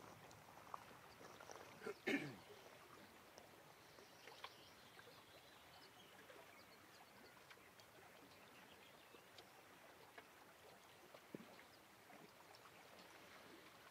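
Near silence: faint outdoor ambience with a few scattered ticks, broken about two seconds in by one brief, sudden sound that sweeps from high to low.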